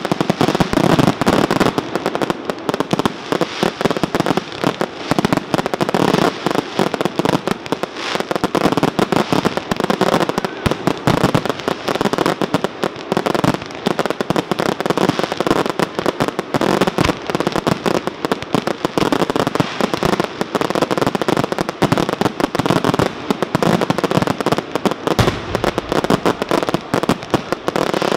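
A fireworks barrage: many aerial shells and ground-launched effects firing together, a continuous dense run of bangs and crackling with no pause.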